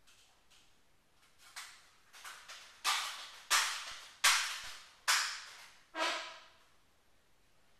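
Daisy 880S multi-pump pellet rifle being pumped: a series of strokes, a few soft ones and then five loud ones a little under a second apart, each starting sharply and fading over about half a second.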